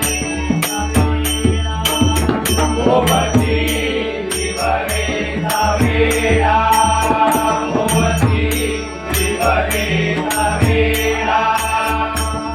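Devotional abhang bhajan music. A male voice sings the melody from about three seconds in, over a pakhavaj drum's low strokes, a steady rhythm of sharp metallic cymbal clicks and a sustained held drone.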